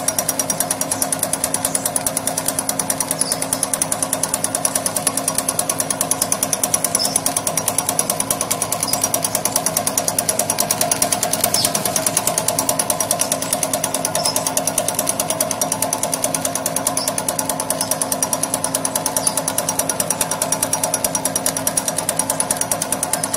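Corn tube snack extruder (DSC-3500) running steadily while its rotary cutter spins at the die, slicing the corn-grit extrudate into rings: a fast, even mechanical rattle over a steady hum.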